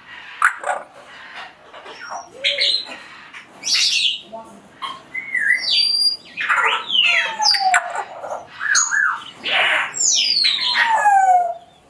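African grey parrots calling: a string of whistles, chirps and squawks, many sliding down in pitch, more frequent in the second half.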